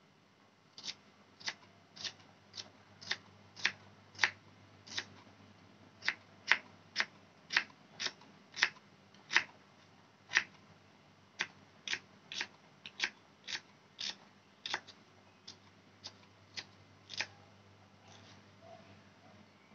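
Kitchen knife slicing shallots on a wooden cutting board: a sharp chop each time the blade cuts through and taps the board, an even rhythm of about one and a half to two strokes a second that stops a couple of seconds before the end.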